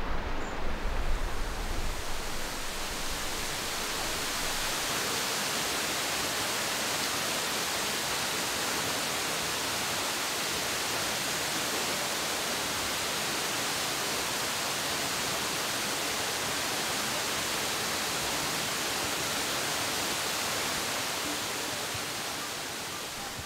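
A steady, even rush of falling water, like a waterfall, with some wind buffeting on the microphone in the first second or two.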